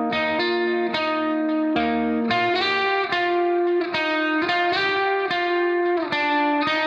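Background music: a plucked guitar playing a melody of notes that change every half second or so.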